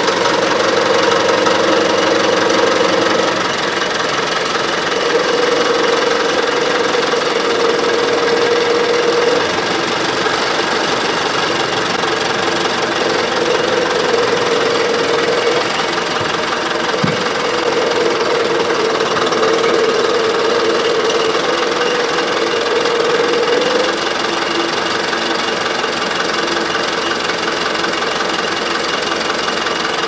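Diesel engine of a Caterpillar 426 backhoe running under load while it moves and sets a roughly 3,700-pound concrete block hung from its front loader bucket. A whining tone comes and goes several times over the steady engine note.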